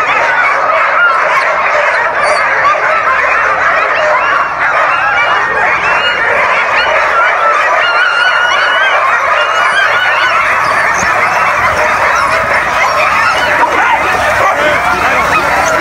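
Loud chorus of many harnessed sled dogs barking and yelping at once, a continuous din of overlapping high cries. This is the excited clamour typical of sled dogs eager to run just before a race start.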